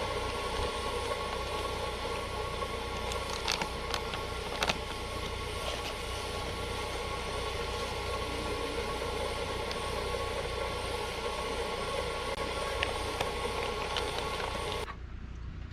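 Steady running noise of a vehicle, a deep rumble with a hum and a few small clicks. It cuts off abruptly near the end into a quieter background.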